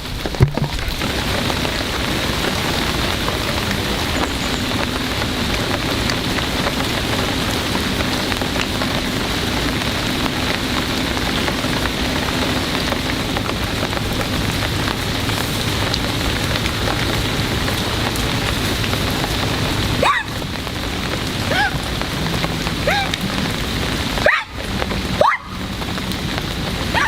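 Steady rain falling, an even hiss throughout. A few short rising chirps sound near the end.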